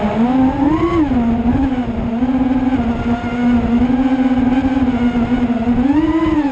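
Racing drone's electric motors and propellers whining steadily, the pitch rising briefly about a second in and again near the end as the throttle is pushed. Low buffeting rumble of high wind on the microphone underneath.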